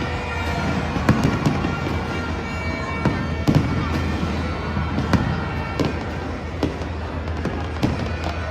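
Fireworks display going off: a continuous run of irregular bangs and crackles, a few sharper reports standing out, over a steady low rumble.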